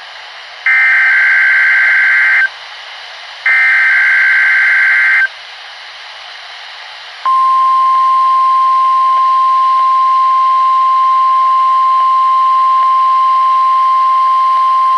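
NOAA Weather Radio SAME header coming through a Midland WR-120EZ weather radio: two harsh, buzzing digital data bursts of about two seconds each, a second apart. After a pause, the steady 1050 Hz warning alarm tone starts about seven seconds in and holds.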